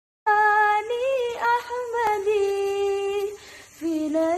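A woman singing solo, unaccompanied. She holds long notes with vibrato and ornamented turns, breaks off briefly about three and a half seconds in, then starts a new phrase.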